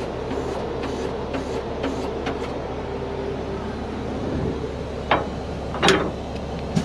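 Heavy-duty wrecker's diesel engine idling steadily, with two sharp metal clanks about five and six seconds in from the underlift fork gear being handled under the dump truck's rear.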